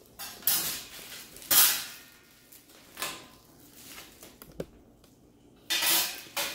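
Plastic wrap and bubble wrap crinkling in several short bursts as metal oven baking trays are unwrapped and handled, with one light knock of a tray past the middle.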